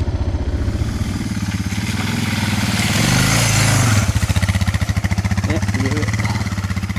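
Suzuki DR650's single-cylinder four-stroke engine running at trail speed with steady exhaust pulses. About three seconds in the engine pitch rises and a rush of noise swells, then both drop back a second later.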